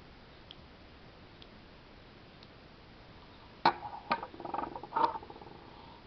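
Metal axle rods knocking against each other and a wooden tabletop as they are handled: a few sharp clicks from about three and a half seconds in, leaving a short metallic ring, with a few faint ticks before them.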